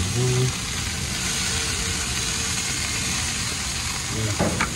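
Amberjack steaks and a whole amberjack sizzling on the hot grates of a gas grill, a steady hiss, with a brief voice near the start.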